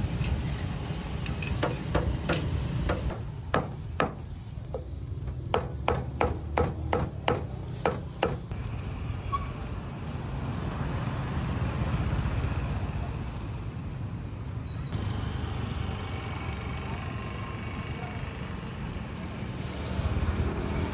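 Roadside street ambience: a steady low rumble of traffic, with motorbikes and a car going by. A quick run of sharp clacks comes in the first half.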